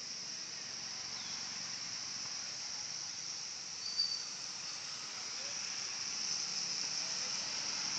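Recorded swiftlet lure call: a dense, continuous high-pitched chittering of many swiftlets, with one short, louder chirp about four seconds in.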